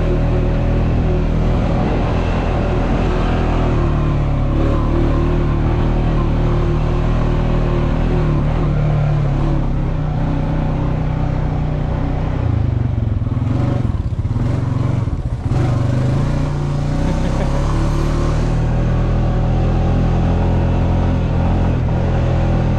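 Quad bike engine running steadily under way, heard from the rider's seat, dipping briefly about two-thirds of the way through.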